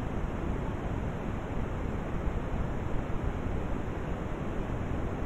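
Steady rushing noise with no distinct knocks, tones or voices.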